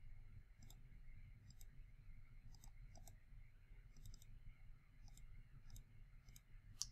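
Faint computer mouse clicks, often in quick pairs, about once a second, with one sharper click near the end.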